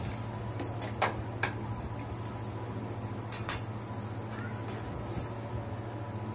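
Metal kebab skewers clinking against each other and the charcoal grill as they are turned: three sharp clinks about a second in and two more a little past three seconds, over a steady low hum.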